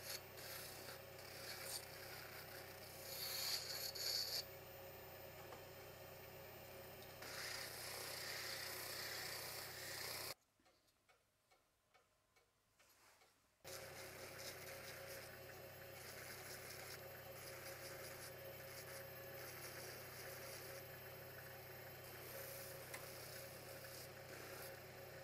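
Small handheld rotary tool running steadily, its sanding drum rasping against a Manchurian walnut carving, louder where it presses harder. The sound drops out for about three seconds around the middle, then the sanding resumes.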